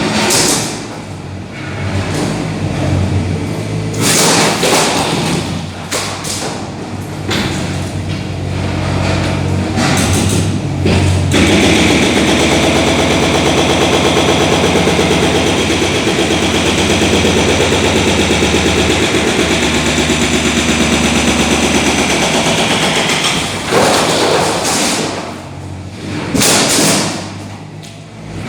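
Demolition work: irregular heavy thuds and crashes, then about eleven seconds of steady, very rapid mechanical hammering, then more thuds near the end.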